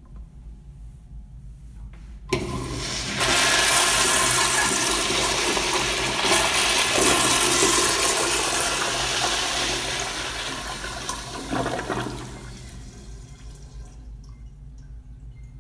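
Crane Plumbing toilet flushing: a rush of water starts suddenly about two seconds in, stays loud for several seconds, then fades out about twelve seconds in.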